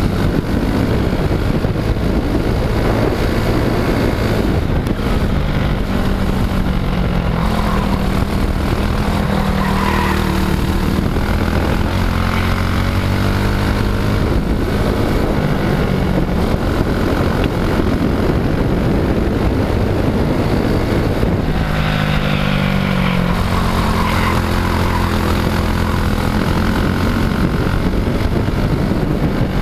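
Briggs & Stratton World Formula single-cylinder four-stroke kart engine running hard, its revs rising and falling as the kart accelerates and slows through the course, with a sharp drop in revs about 21 seconds in. Heard onboard, close to the engine.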